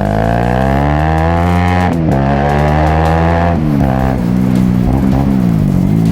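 Bajaj Rouser NS200 single-cylinder engine through an aftermarket Paolucci sport exhaust, accelerating through the gears: the note climbs, drops at a shift about two seconds in, climbs again and drops at a second shift, then the revs rise and fall as the throttle eases.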